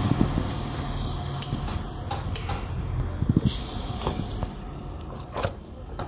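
Hand tools and metal parts clinking and knocking as a mechanic works at a scooter's rear brake drum, with a quick cluster of clicks about three seconds in and a louder knock near the end, over a steady low hum.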